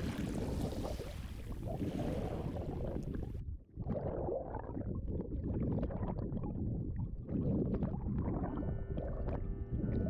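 Sea water washing with a full hiss, then, a little over three seconds in, the sound turns abruptly to a muffled underwater rumble and bubbling as the microphone goes beneath the surface. Held musical tones come in near the end.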